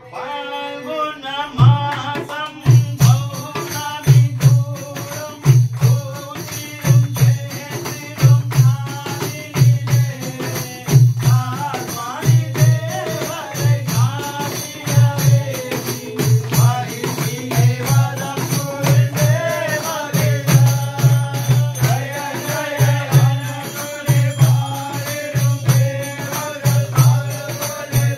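Ayyappa devotional bhajan: a man sings the lead into a microphone with others joining in, over a drum keeping a steady beat about one and a half times a second and jingling percussion.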